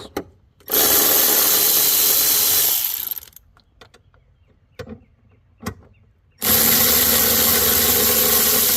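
Power tool running in two bursts, about two seconds and then over two seconds, spinning out two screws. A few faint clicks fall between the bursts.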